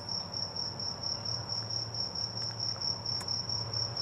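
Insect trilling steadily: a high-pitched, evenly pulsing call of about six pulses a second. A single sharp click comes about three seconds in.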